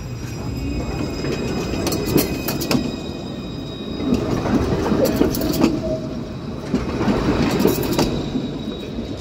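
Alstom Citadis low-floor tram rolling slowly past at close range, a steady low rumble with a few sharp clicks and knocks from the wheels on the rails, about two seconds in, around five seconds in and near the end. A thin high whine carries through the first half.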